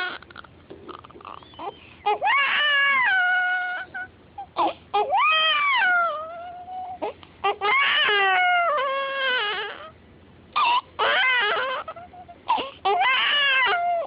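Baby crying in a string of about five long wails, each one or two seconds long and mostly dropping in pitch at the end, with short catches of breath between.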